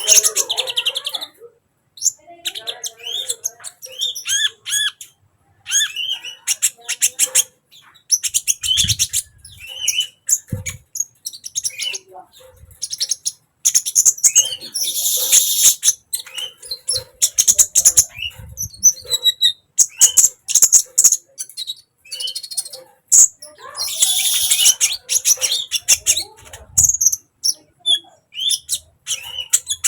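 Sunbird in full song, pouring out rapid runs of high chirps, twitters and short hooked notes, with brief pauses between the runs.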